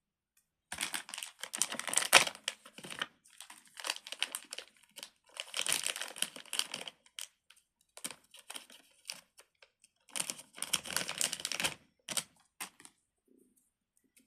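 Plastic packaging crinkling as it is handled, in several bursts with short pauses between them.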